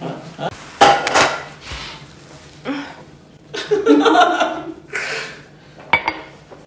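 A woman gagging and gasping into a napkin as she forces down a mouthful of raw tomato, with a man chuckling. A sharp click about six seconds in.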